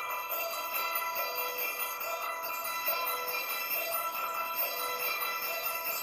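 Christmas music with jingle bells over sustained chiming tones, a short note figure repeating about once a second, played by a festive sound installation.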